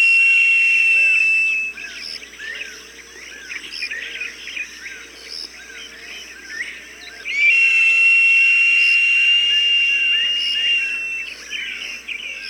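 Hawk calls: two long, high whistled screams held at an even pitch. The first fades out about a second and a half in, and the second runs from about seven and a half seconds to eleven. Between and beneath them, small birds chirp rapidly.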